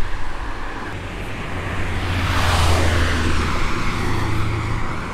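A road vehicle passing by on the road alongside, its tyre and engine noise swelling to a peak about two and a half seconds in and then fading away.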